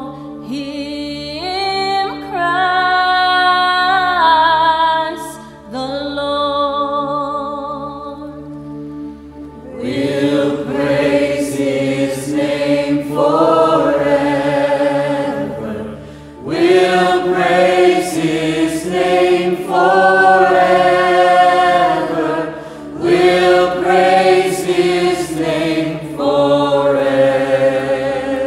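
Singing: one voice holds notes with vibrato, then a fuller choir of many voices comes in about ten seconds in.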